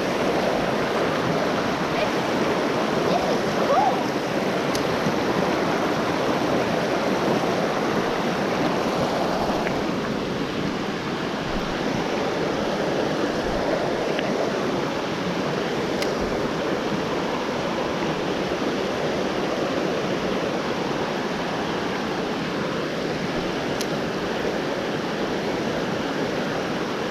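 Creek water rushing steadily over rocks: a continuous, even rush with no pauses.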